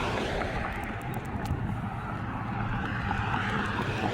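Steady motor-vehicle traffic noise: a low engine drone under a rushing hiss of passing tyres.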